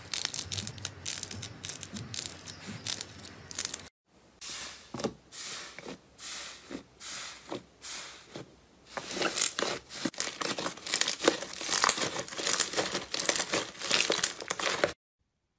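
Hands squeezing and pressing slime: dense wet crackling and squishing. It pauses about four seconds in, continues as separate pops, then grows into louder, denser crackling before cutting off suddenly just before the end.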